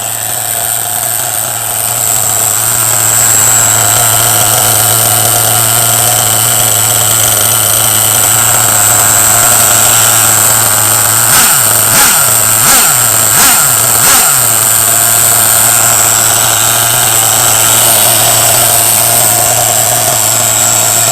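LRP S8 Rebel BX 1:8 nitro buggy's engine running steadily at idle through a Reely dual-tailpipe exhaust, with a high whine over it. About halfway through come four quick throttle blips in a row.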